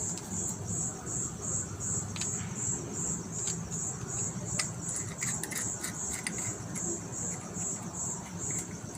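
A cricket chirping steadily in a high, even pulse, about three chirps a second, with a few faint clicks and knocks of handling mixed in.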